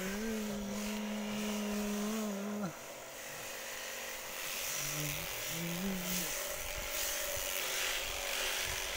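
Wind rumbling on the microphone, with one long, flat, held call for the first few seconds and two short calls a few seconds later, from the goat and sheep flock or a herder.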